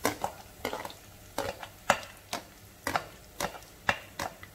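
A spatula knocking and scraping diced onion off a metal tray into a pot, about two sharp knocks a second, over a light sizzle of garlic frying in oil.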